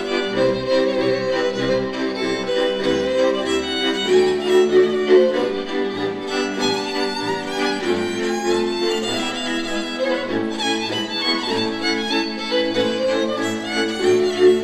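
Hungarian folk string band playing: a fiddle melody over sustained bowed chords and an evenly pulsing bass.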